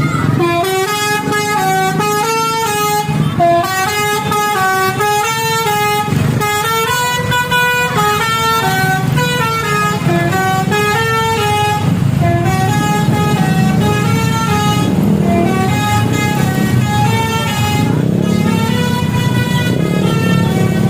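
Bus basuri (telolet) melodic horn playing a tune: a long string of short pitched notes stepping up and down, over a low rumble.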